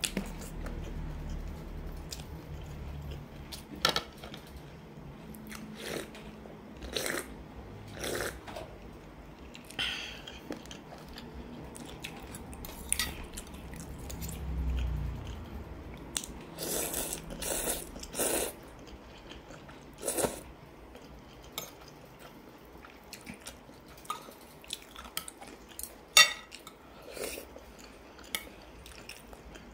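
Close-up eating sounds of spicy instant noodles: slurps and chewing in scattered short bursts, with a sharp click near the end.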